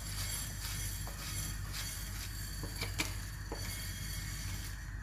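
Pot of soup boiling on the stove: a steady low hum with a few light clicks and taps, most of them between about two and three and a half seconds in.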